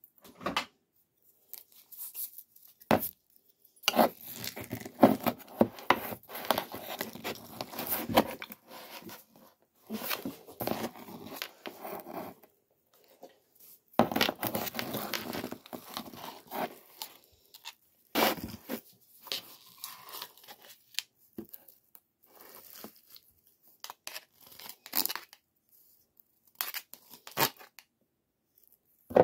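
A ring-pull tin of wet dog food being opened and emptied with a metal spoon: the lid peeled back at the start, then long stretches of the spoon scraping the meat out of the can, broken by short knocks and scrapes.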